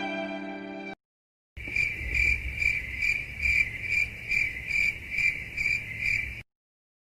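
Crickets chirping: a high chirp repeating a little over twice a second, with a low hum beneath, starting after a short gap and stopping abruptly near the end. A held violin note fades out in the first second.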